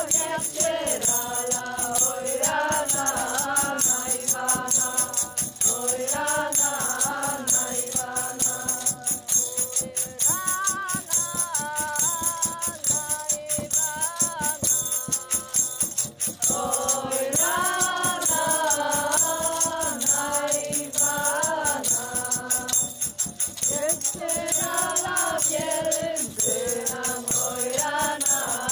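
Music: several voices singing a melody together over a fast, steady rattling percussion beat, with a couple of short breaks between sung phrases.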